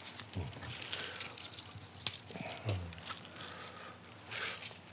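Rinsed, wet noodles being squeezed by hand and dropped into stainless steel bowls, making scattered short wet clicks and squelches. There are brief low murmurs from a person twice.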